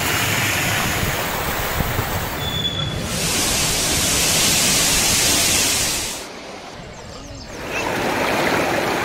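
Water rushing through the opened spillway gates of the Jurala dam, a steady, loud rush of water. It turns brighter and hissier about three seconds in, drops away for a moment around six seconds, then returns.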